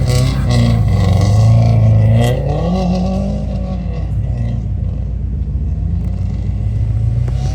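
Subaru WRX's turbocharged flat-four engine running under load; its pitch climbs a little past two seconds in, then eases back down.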